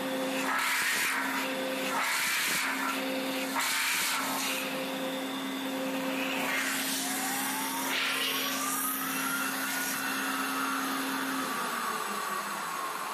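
CNC metal spinning machine running: a steady hum with hissing, scraping passes as the forming roller presses the spinning sheet-metal blank over the mandrel. About seven seconds in a whine rises in pitch, then slowly falls, and the hum stops near the end.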